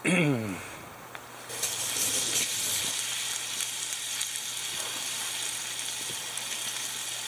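Chopped bacon sizzling in a skillet over hot charcoal. The steady hiss of frying comes in suddenly about a second and a half in. It is preceded by a short falling vocal sound at the very start, the loudest moment.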